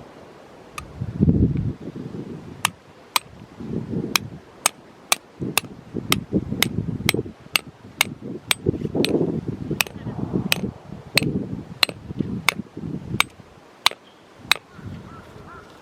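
Tent pegs being hammered into the ground: a long run of sharp metallic strikes, about two a second, with dull rustling and thudding from handling the pegs in between.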